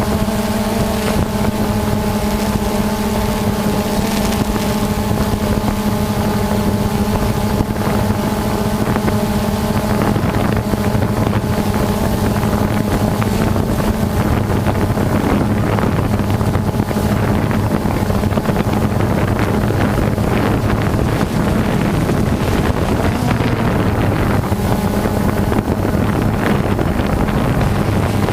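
DJI Phantom 2 quadcopter's electric motors and propellers buzzing steadily in flight, with wind rushing over the microphone. The pitch holds steady for about the first ten seconds, then wavers.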